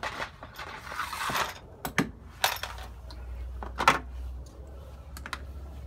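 Hand work on a van's floor trim: a rustle, then several sharp metallic clicks and clinks of small screws and a Torx driver being handled, with a low hum under the second half.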